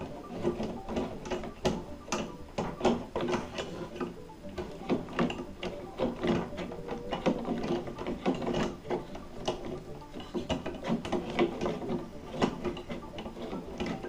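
Pliers clicking and rattling against the compression nut of an icemaker supply line as it is tightened onto the refrigerator's water inlet; many short, irregular metal clicks.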